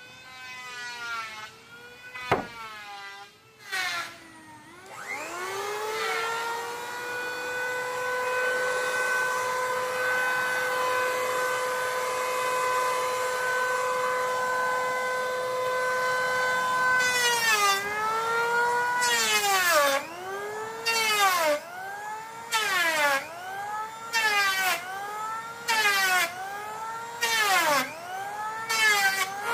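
High-speed power tool working wood. It runs freely at a steady high pitch for several seconds, then bogs down about a dozen times, roughly once a second: each cut drops the pitch and adds a loud rasp of cutting, and the motor recovers between cuts. There is a sharp knock a couple of seconds in.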